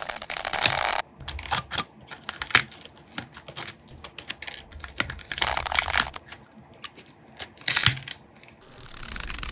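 Cracked iPhone back glass being picked and pried off with hard tools: rapid, irregular small clicks and taps. Three short buzzing stretches come in, about a second each: at the start, in the middle and near the end.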